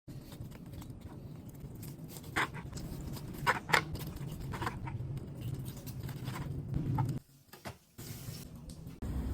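Crisp crackling of fried pork rinds (chicharrón) being broken or crunched, with several sharp cracks between about two and five seconds in, over a steady low hum that drops away briefly near the end.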